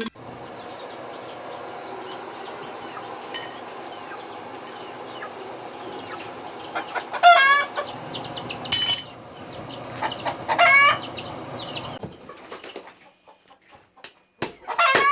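Chickens calling over a steady background hiss, with two loud calls about seven and ten and a half seconds in. A few sharp knocks come near the end.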